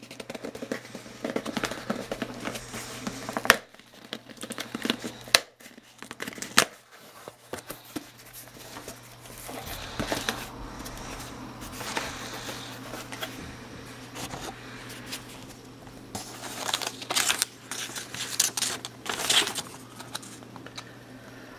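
Cardboard shipping box being opened by hand: packing tape tearing and cardboard flaps rustling and pulled back, with a few sharp knocks in the first seven seconds. Paper leaflets rustle and crinkle near the end.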